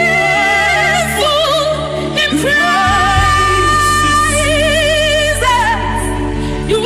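Worship music: a solo voice singing long, wavering notes with heavy vibrato and runs, over held low chords that change about three seconds in.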